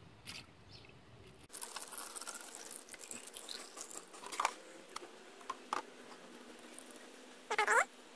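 Coolant pouring from a jug through a funnel into a car's radiator filler neck: a faint trickling patter with small clicks, and one short, louder pitched sound near the end.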